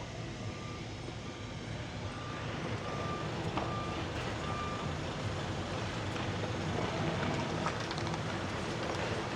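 Truck reversing beeper, short high beeps about once a second for the first four or five seconds, over a vehicle engine running that grows gradually louder.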